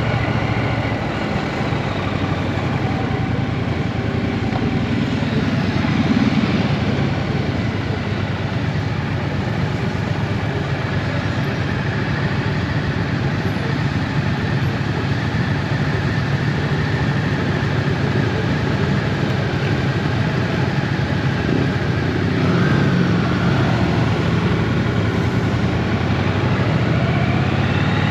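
Triumph Bonneville T120's 1200 cc parallel-twin engine running steadily under an even rushing noise, swelling briefly twice.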